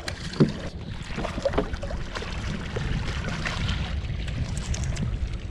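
Water splashing beside a small boat's hull as a hooked tarpon thrashes at the surface, over a steady wind rumble on the microphone.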